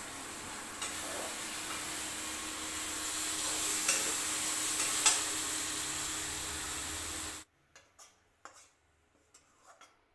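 Food sizzling in a hot aluminium kadhai on a gas flame, stirred with a metal spatula, with a couple of sharp clinks of metal on the pan. The sizzling cuts off abruptly about seven seconds in, leaving only faint scraping clicks.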